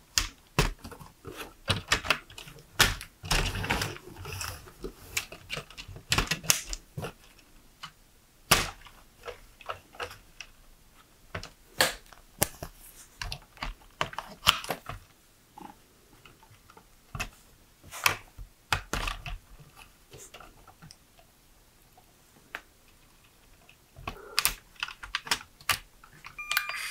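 LEGO Technic plastic parts clicking and snapping together as a model is assembled by hand: irregular sharp clicks and light clatters, with a quieter pause about three quarters through.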